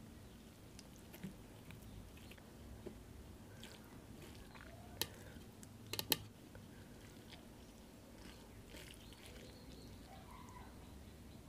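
Fingers mixing rice with curry on a steel plate: faint soft squishing and small wet clicks, with a few sharp clicks about five and six seconds in.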